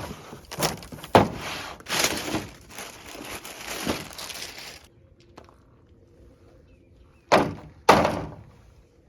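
Packaging of a new replacement window regulator being opened and handled: rustling and repeated knocks for about five seconds, then two loud thunks about half a second apart near the end.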